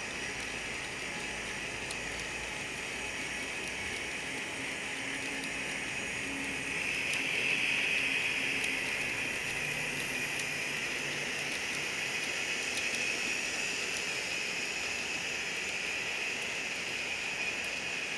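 A long string of N-gauge model coal hopper cars rolling past on the track, with a steady rolling noise of small wheels on rail that swells a little about seven seconds in.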